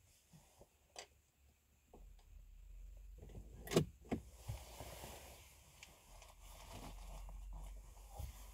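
Rummaging through things inside a car: a few sharp clicks and knocks, the loudest a little under four seconds in, over a soft continuous rustle.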